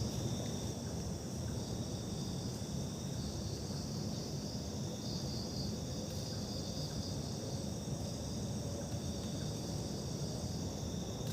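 Steady chorus of crickets and other insects, several unbroken high trills at once, over a low rumble.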